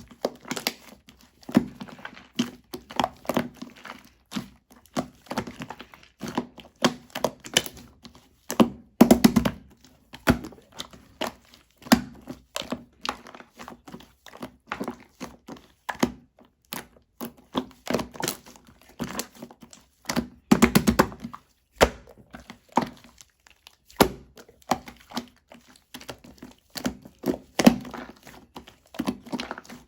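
Coffee shaving-foam slime being squeezed and pressed by hand, making irregular wet clicks, pops and squelches. Longer runs of squelching come about nine seconds in and again around twenty-one seconds.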